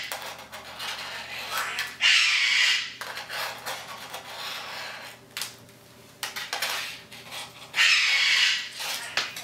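A pet parrot screeching, two loud rasping screams of about a second each, one about two seconds in and one near the end. Between them come light clicks of typing on a laptop keyboard.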